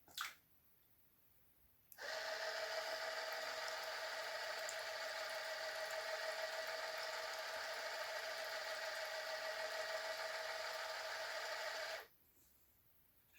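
Small electric motor of an Arduino-controlled soju-dispensing machine running at a steady speed for about ten seconds, starting and stopping abruptly, with a brief click at the very start.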